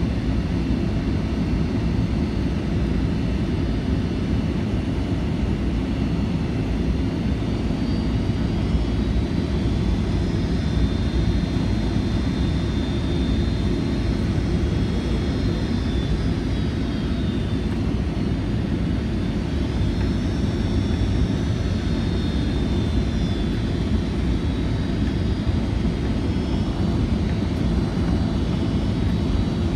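Boeing 757-200 cabin noise in flight: a steady low rumble of airflow and engines. A faint high engine whine rises and falls in pitch twice, about a third and two-thirds of the way through.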